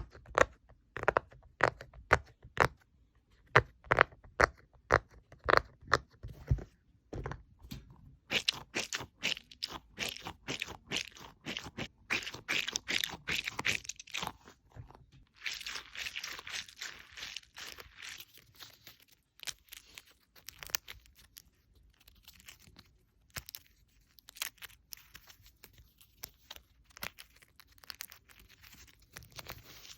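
Small fidget toys handled close to the microphone. A run of sharp clicks and pops at two or three a second gives way, about eight seconds in, to denser crackling and scratching, then to sparser clicks.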